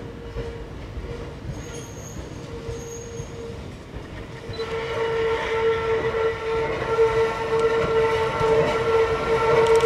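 Hakone Tozan Railway electric train approaching round a sharp curve, its wheels giving a steady high squeal over a low rumble. The squeal grows much louder about halfway through as the train nears.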